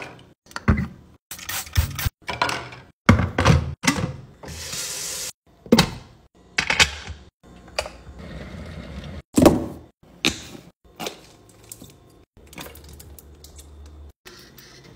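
A quick-cut run of short kitchen cleaning sounds: knocks, taps and clicks of bottles, a kettle switch and objects handled at a stainless steel sink. A brief hiss comes about four and a half seconds in.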